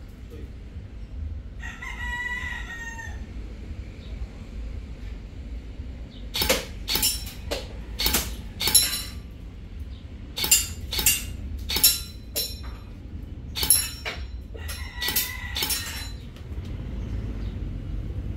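Airsoft rifle being test-fired to zero its scope: about a dozen sharp cracks starting about six seconds in, mostly in pairs about half a second apart. A rooster crows about two seconds in and again during the last shots.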